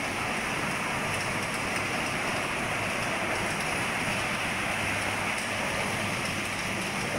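Walthambury W 425 vegetable weigh-bagger running, its red lugged conveyor belt moving: a steady rushing noise with a faint low hum from the drive.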